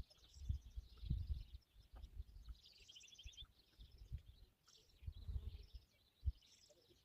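Several birds chirping and singing in quick, overlapping calls, busiest about three seconds in, over intermittent low rumbling.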